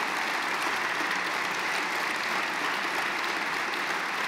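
A large seated crowd applauding steadily, an even wash of many hands clapping.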